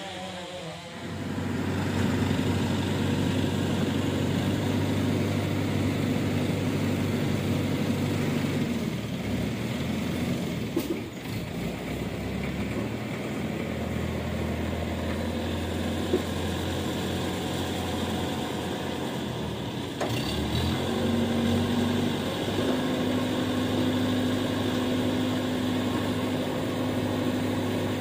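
Heavy diesel engine of an ACE 12XW hydraulic crane running steadily while the crane works, its engine note shifting up and down several times.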